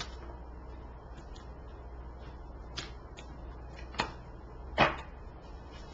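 A few short, sharp clicks and taps of tarot cards being handled and laid down on the table, the loudest about three-quarters of the way through, over a low steady hum.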